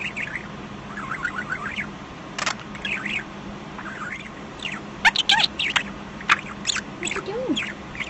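Budgerigar chattering and warbling: a rapid run of short chirps, clicks and squeaky pitch sweeps, getting busier about five seconds in.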